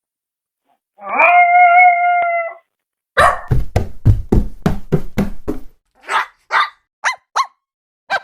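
A dog howls once, rising then holding for about a second and a half, then gives a quick run of about eight barks, followed by four short, higher yips near the end.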